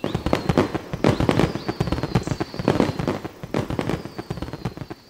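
Fireworks going off: a rapid run of bangs and crackling bursts, with a faint high whistle falling slowly in pitch.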